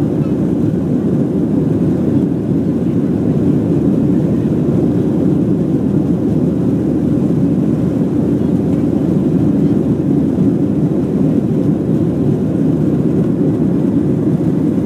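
Steady engine and airflow noise inside the cabin of an Airbus A330 climbing after take-off, a constant low rumble with no changes.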